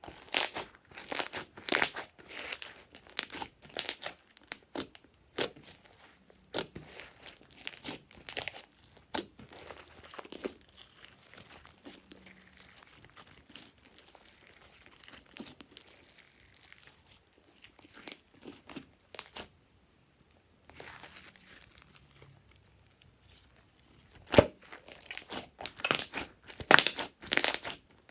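Slime being squeezed and worked by hand: irregular sticky crackling and popping. The crackling is dense at first, thins out to faint squishing through the middle, and comes back loud near the end.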